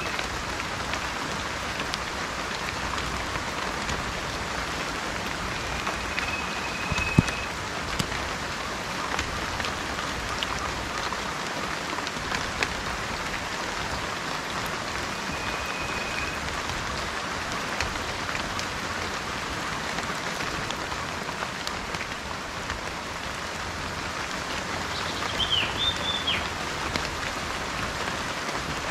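Steady rain falling on a surface, with scattered drops and one sharp tap about seven seconds in. A bird gives a few short whistled notes over it: two steady whistles and then a quicker warbling call near the end.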